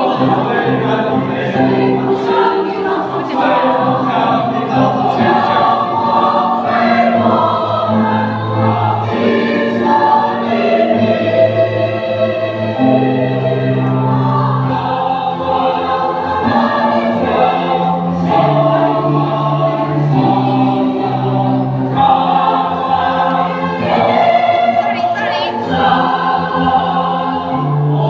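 A choir singing in several-part harmony, with held notes that change every second or two over sustained low bass notes.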